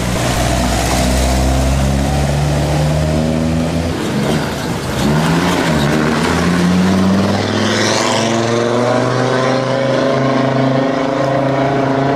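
Two historic rally car engines in turn: first a Ford Escort Mk1 rally car's engine running low as it pulls away. Then an Audi quattro rally car's five-cylinder engine is blipped up and down and revs rising as it accelerates off.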